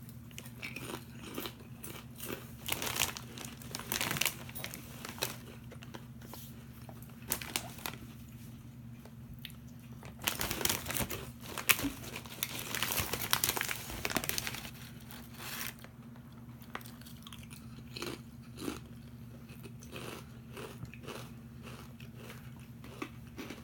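Crunchy pita chips being bitten and chewed close to the microphone: irregular crisp crunches, densest and loudest in the middle, thinning out to occasional crunches near the end.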